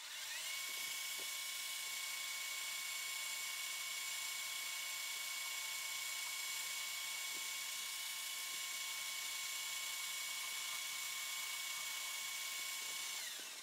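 Metal lathe spindle spinning up, running steadily with a high whine, and winding down near the end, while a turning tool takes a facing cut across a brass flywheel hub.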